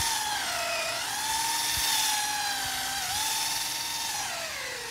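Cordless drill running under load as its long bit bores through a hard wooden fence post: a steady whine that dips in pitch twice and sags lower near the end as the bit labours in the wood.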